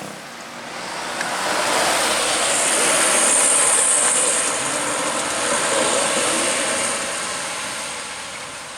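A bus passing by on the road at speed: engine and tyre noise with a strong hiss swells to a peak about three to four seconds in, then slowly fades as it goes away.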